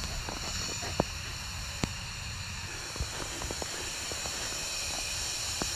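Steady hiss from a gas pipeline station's valves and piping, which the owner takes for a slow, steady discharge of gas or gas rushing through the pipes. A few light clicks and taps sound over it.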